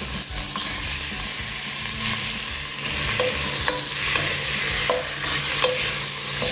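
Raw chicken pieces sizzling in hot oil with onions in a coated pot. From about three seconds in they are stirred with a wooden spatula, which knocks against the pot several times.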